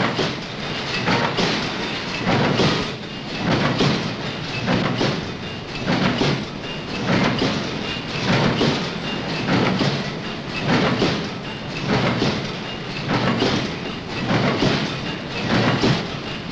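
Bolt-making machinery running with a steady, rhythmic clatter, one heavy beat a little over a second apart, as heavy wire is fed through straightening rollers into the machine.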